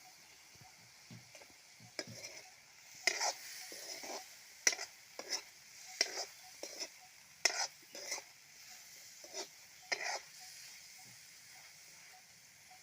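Poda machha fish curry being stirred as it fries in a pan: a run of irregular scrapes over a faint sizzle, which stop about ten seconds in.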